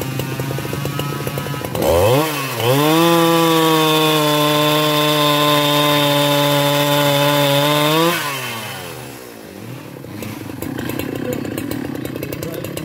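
Husqvarna 395XP two-stroke chainsaw idling, then revved up about two seconds in and held at full throttle while cutting through a hardwood log for about five seconds, its pitch staying steady under load. It drops back to idle near the end.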